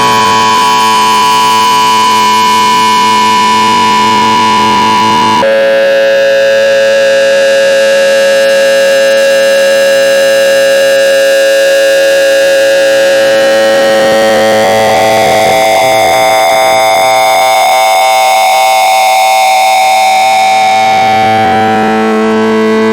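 Loud, harsh electronic tone built of many stacked pitches, held steady. It jumps to a lower pitch about five seconds in, slides up to a new, higher pitch around fifteen seconds, and drops again near the end.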